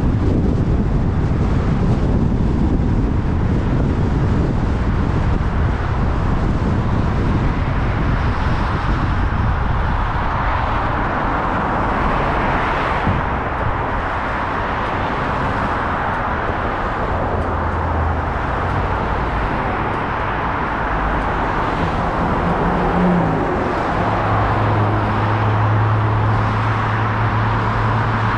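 A Kia Cerato being driven on a busy road: continuous road and traffic noise, with a heavy low rumble through the first third that eases as the car comes up to an intersection. A steady low hum comes in briefly, then again for the last few seconds.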